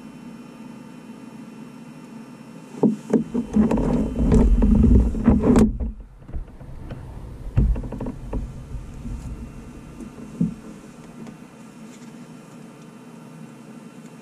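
Four-cylinder Lycoming engine of a light aircraft cranked by its electric starter for about three seconds on a cold start, with uneven knocking, then stopping abruptly without catching. A couple of weaker thumps follow over a steady faint hum.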